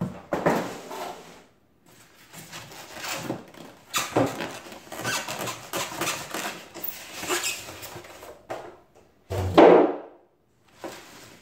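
Cardboard carton and polystyrene foam packaging being handled and pulled apart: irregular rubbing, scraping and knocking, with a louder thump near the end as the foam insert is set down.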